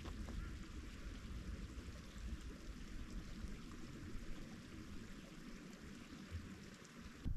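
A steady rushing hiss outdoors, with an uneven low rumble of wind buffeting the microphone.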